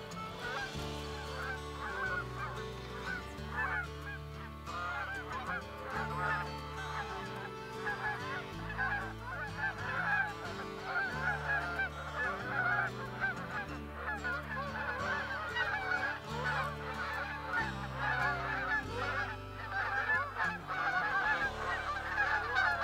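A large flock of Canada geese honking in flight, many calls overlapping without a break, growing denser after the first third.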